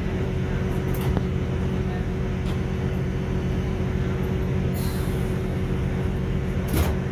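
Interior of a Class 166 diesel multiple unit under way: the steady drone of its underfloor diesel engine and running gear, with a few sharp knocks from the wheels on the track, the loudest near the end.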